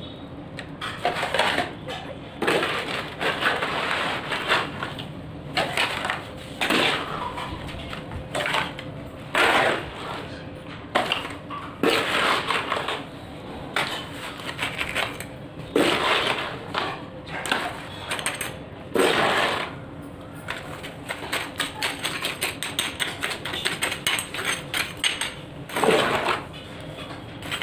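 Metal spoon scooping wet cement mortar with gravel from a plastic tub and packing it into a plastic-lined mould: repeated gritty scrapes of the spoon against the tub and wet plops of mortar. Quicker clicking and scraping comes in the last few seconds.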